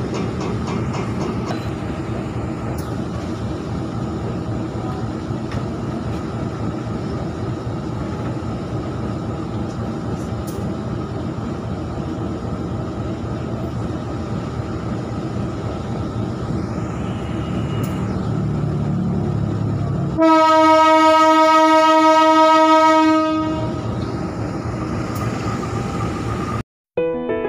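Diesel locomotive engine running steadily close by. About twenty seconds in comes one long, loud horn blast of about three seconds, after which the engine hum carries on until it cuts off abruptly just before the end.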